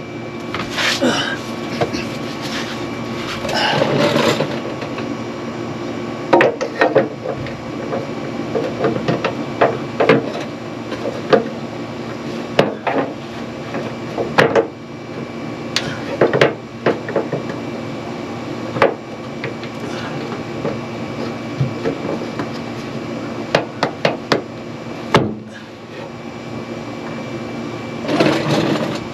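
Scattered knocks, taps and clicks, with denser rustling and handling in the first few seconds, as a replacement rear cab pressure-relief vent is worked and popped into its opening in the back of a Silverado cab. A faint steady hum runs underneath.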